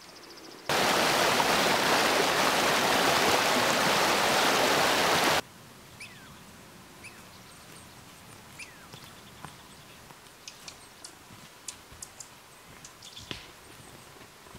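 Loud, steady rushing water, like a waterfall, that cuts in suddenly about a second in and stops just as suddenly about five seconds later. After it comes quiet forest ambience with scattered short bird chirps and faint ticks and snaps.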